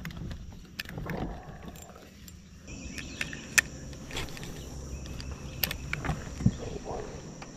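Insects droning in a high steady buzz that starts about a third of the way in, over a low steady rumble, with scattered sharp clicks and knocks.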